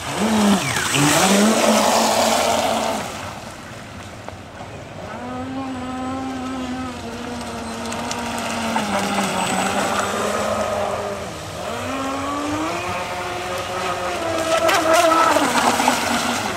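Electric motor of a radio-controlled model boat whining as it runs on the water, its pitch dipping and climbing again with the throttle twice. Louder rushing noise swells in near the start and again near the end.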